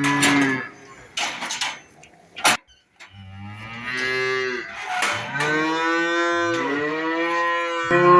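Cows mooing in long, drawn-out calls that rise and fall in pitch, with a second call overlapping near the end. A few sharp knocks come between the first and second calls.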